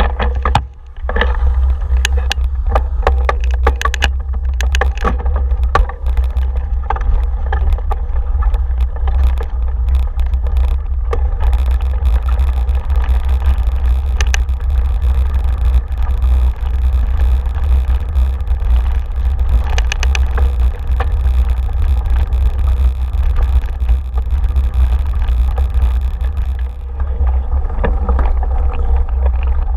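Heavy wind buffeting on the microphone of a camera riding along on a bike over a woodland trail. Over it come knocks and rattles from the bike jolting over the ground, thickest in the first six seconds or so while it crosses a wooden plank footbridge, then scattered.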